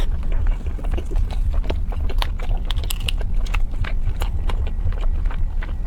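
Close-miked biting and chewing of a fried chicken drumstick: irregular crunches and mouth clicks over a steady low hum.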